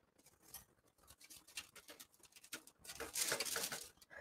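Faint kitchen handling sounds of a baking tray of pretzels on greaseproof paper: a few light clicks, then a stretch of rustling and scraping about three seconds in.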